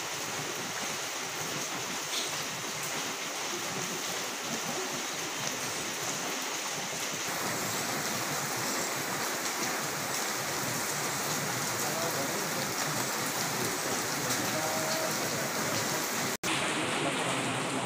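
Steady rushing background noise with no distinct events, cutting out for an instant near the end.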